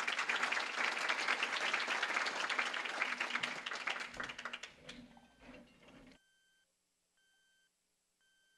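Audience applauding, the clapping thinning out after about four seconds and cutting off abruptly about six seconds in. After that there is near silence with a faint short beep repeating about once a second.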